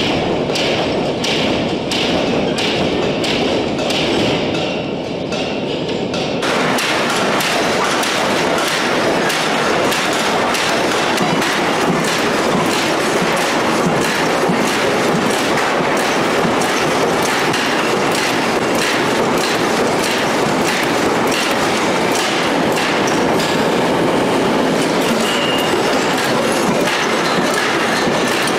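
Hydraulic forging press working a red-hot steel billet, its dies striking in rapid, regular strokes. About six seconds in the sound turns abruptly into a denser, continuous clatter of quick knocks over a steady shop noise.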